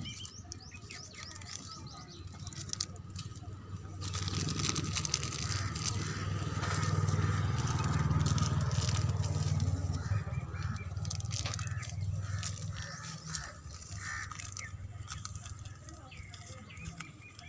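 Polythene wrapping rustling and crinkling as it is handled and tied around a branch. A low rumble swells up a few seconds in, is loudest in the middle and fades away.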